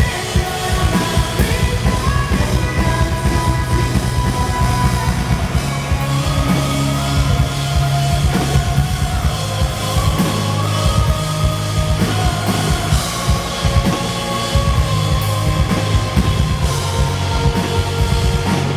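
Live rock band playing loudly, drum kit hitting fast and steady under held electric guitar and bass lines.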